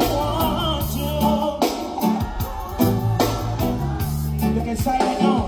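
Live reggae band playing through a PA, a heavy steady bass line under a wavering lead melody and drums.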